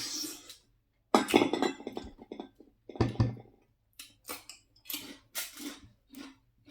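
Cutlery and shells clinking and scraping against dishes during a seafood meal: a few louder clatters early, then a quicker string of light clinks.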